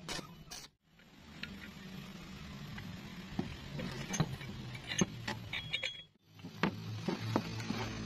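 Scattered light metallic clinks and taps as a welded steel pump housing and its shaft are handled, over a steady low hum. The sound drops out briefly twice.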